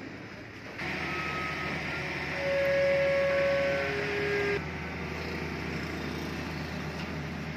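Engine of the crane lifting the machine running steadily, with a steady whine that comes in about two seconds in and is loudest for a couple of seconds before dropping to a lower pitch and stopping.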